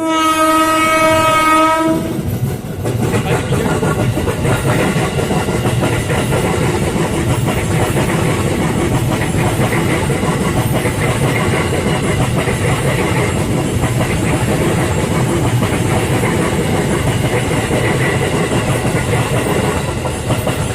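Horn of a JR 205-series electric commuter train (KRL), one steady blast lasting about two seconds. The train then passes close by, its wheels clattering over the rail joints with a continuous rumble.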